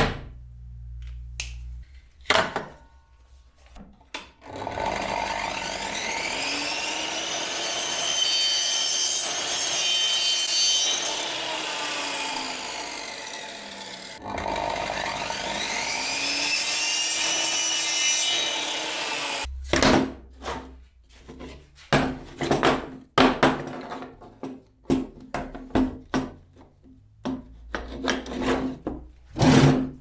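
Electric compound miter saw run twice through a hollow-core panel: each time the motor whines up to speed, cuts and winds down, for about fifteen seconds in all. It is followed by a quick string of knocks and clicks.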